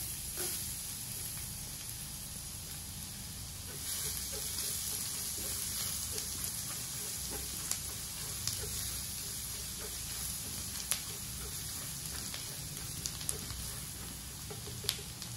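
Minced garlic sizzling in hot oil in a stainless steel honeycomb wok. The sizzle starts suddenly as the garlic goes in and grows louder about four seconds in, once it is stirred. A silicone spatula clicks and scrapes against the pan a few times.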